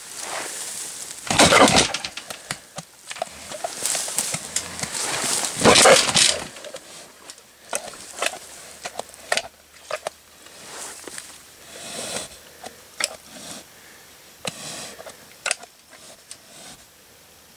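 Trapped feral pig huffing loudly twice, then softer snuffling with scattered clicks and rustles as it roots in the dirt.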